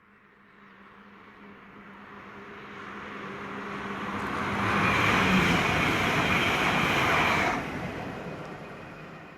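A train passing at speed on the main line. Its rumble and wheel-on-rail noise build steadily as it approaches, are loudest for about three seconds as it goes by, then drop away suddenly as the last vehicle passes and fade into the distance.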